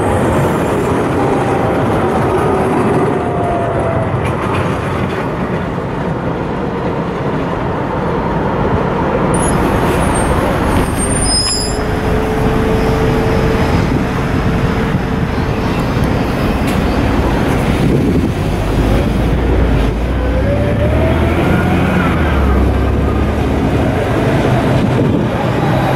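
Alstom low-floor trams: one pulling away past the microphone with a falling electric motor whine, then steady road-traffic noise, then another tram approaching with a rising motor whine and a growing low rumble from the wheels on the rails near the end.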